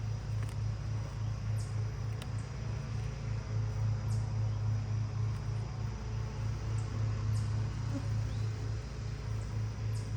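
Honeybees buzzing around an opened hive during an inspection: a steady low drone that swells and fades a little, with a few faint clicks.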